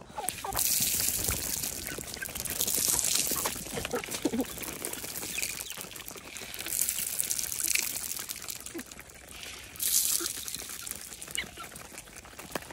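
Dried maize kernels tossed from a plastic bowl, scattering over a concrete floor in four showers a few seconds apart, with hens clucking now and then in between.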